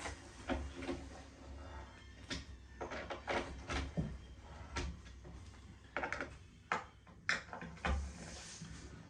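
A series of irregular knocks and clicks from flat-pack kitchen cupboard parts being handled and fitted together.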